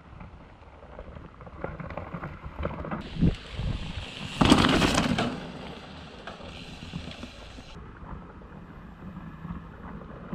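Mountain bikes rolling over a dirt forest trail: tyre noise with scattered knocks and rattles, and a louder rush about halfway through.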